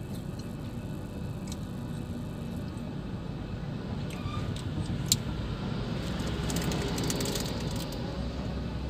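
Road traffic heard from inside a car's cabin: a steady low engine rumble, with a hissing swell of noise about six to seven seconds in as oncoming trucks pass close by, and one sharp click about five seconds in.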